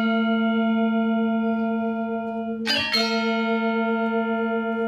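A low bell chime sound effect ringing steadily, struck again a little under three seconds in and ringing on.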